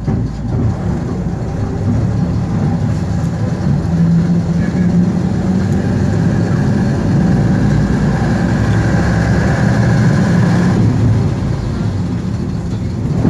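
Jelcz 272MEX city bus's Skoda 706RT six-cylinder diesel engine heard from inside the cabin as the bus drives, getting louder a second or so in as it picks up speed. A higher whine builds from about five seconds in and cuts off suddenly near eleven seconds.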